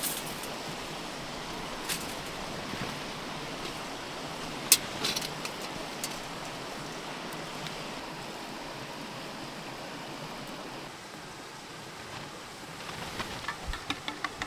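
Steady rushing of a river flowing by, with a few sharp clicks, and a run of quick clicks and taps near the end.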